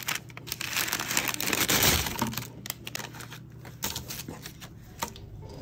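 Paper fast-food bag crinkling and rustling as it is handled and emptied onto a paper-covered table: dense and loud for the first two seconds, then thinning to a few scattered crackles.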